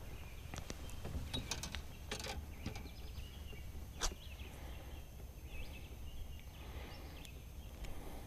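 Scattered sharp clicks and small knocks of hands and pliers working a hook out of a bluegill's mouth, the loudest click about four seconds in, over a steady low rumble of wind or handling on the microphone.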